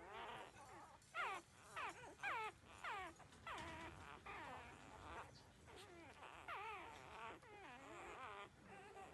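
Newborn puppies, about two weeks old, whimpering and squealing in a string of short, high cries, many sliding down in pitch and some wavering, often overlapping.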